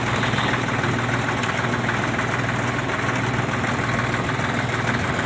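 A vehicle engine running steadily, a low even hum.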